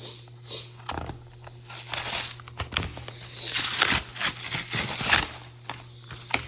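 Product packaging of a trading-card collection box being torn open and crinkled by hand, in irregular rustling bursts that are loudest in the middle, over a steady low hum.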